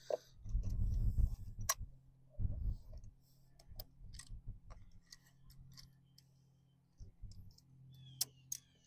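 Scattered sharp clicks and clinks of hand tools and small metal parts as the carburetor is unbolted from a Mercury 15 hp outboard. There is a muffled low rumble of handling about a second in, over a steady low hum.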